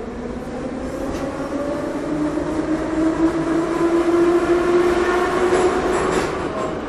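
Moscow metro train running in the tunnel, heard from inside the carriage: a steady rumble of wheels on rail under a motor whine that climbs slowly in pitch and grows louder as the train picks up speed.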